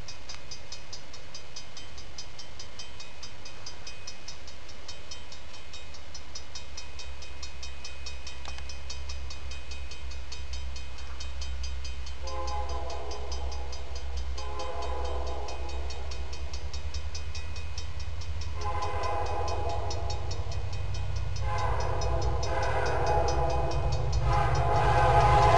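Diesel passenger train approaching, its engine rumble steady and low. From about halfway the locomotive horn sounds a series of long blasts, each louder than the last as the train closes in.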